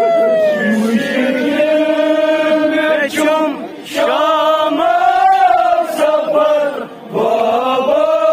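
Male voices chanting a Kashmiri noha (mourning lament) into handheld microphones, amplified through horn loudspeakers, in long held, wavering notes. The chant breaks off briefly about halfway through and again near the end.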